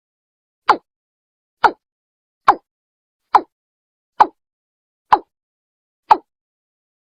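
Watercock (Gallicrex cinerea) call recording: a short, falling note repeated a little under once a second, eight times. This is the decoy call played to lure watercocks in.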